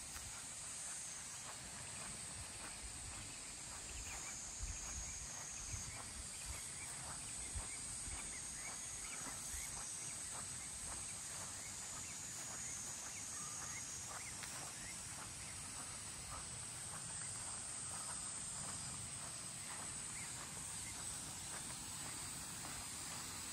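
Outdoor ambience with a steady high-pitched insect drone, small crackling ticks scattered through it, and a low rumble underneath.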